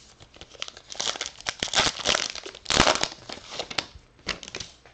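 Foil wrapper of a 2019 Bowman Heritage baseball card pack being torn open and crinkled by hand: a run of crackling rips, loudest a little under three seconds in, dying away near the end.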